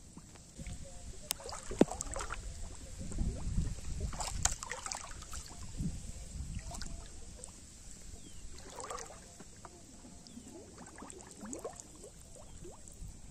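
Pond water sloshing and splashing in uneven bursts around a floating plastic-bottle fish trap as a hooked fish drags it through the water.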